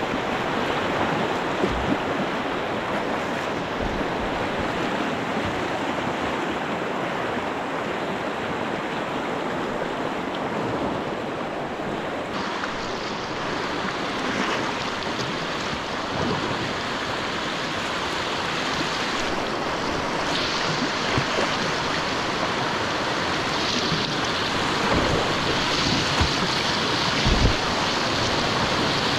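White-water river rapids rushing steadily, the sound shifting a little about twelve seconds in.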